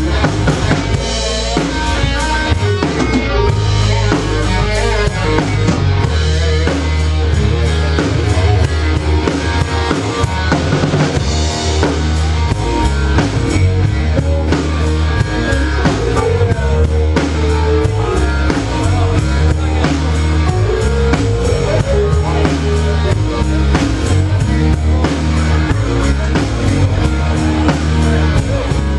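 Live blues-rock band playing an instrumental stretch, with the drum kit's bass drum and snare prominent over bass and pitched instruments, and no singing.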